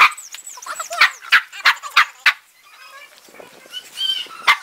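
Dog barking: a quick run of short, sharp barks, about three a second, fading out around the middle.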